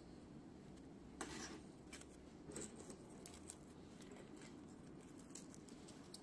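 Near silence, with a few faint taps and rustles of small parts being handled.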